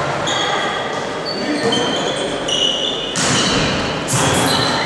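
Volleyball game sounds in an echoing sports hall: players' and spectators' voices, short high squeaks of shoes on the court floor, and ball hits. There are two sharper noisy bursts, about three and four seconds in.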